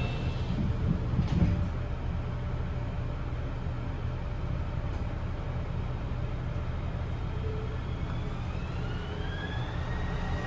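Kobe Port Liner people-mover car at a station: the sliding doors shut with a thump about a second and a half in, then a steady low hum. Near the end the traction motors' whine rises in pitch as the train starts to pull away.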